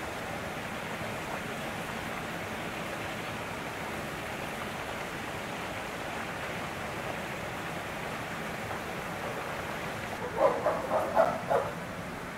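Chimpanzee calls: a quick run of four or five loud hoots about ten seconds in, over a steady background hiss.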